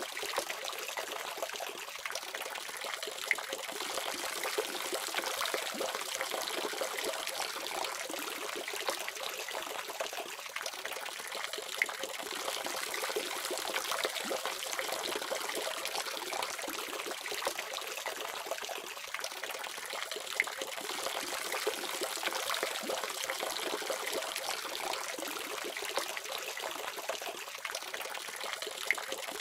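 Water running steadily from a faucet, an even splashing trickle with small irregular splashes.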